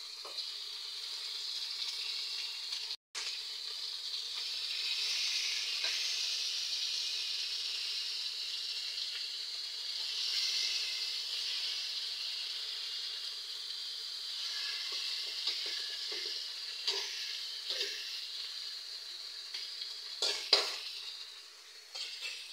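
Tilapia frying in oil in a steel wok with tomato, onion and garlic, a steady sizzle. It cuts out for a moment about three seconds in. In the last several seconds a few short knocks come as the fish are handled, the sharpest about twenty seconds in.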